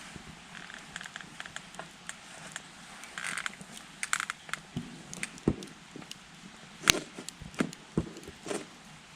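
Wood campfire burning in a Coleman Fire Disk fire pit, crackling with irregular sharp pops, the loudest about seven seconds in. Brief spurts of hiss come around three and four seconds in.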